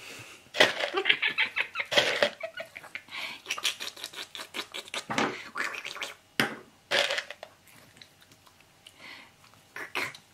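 Rapid scratching and scuffling in irregular bursts: a small dog's claws and paws scrabbling against hands and the fabric of a sofa in play, quieter for a stretch near the end.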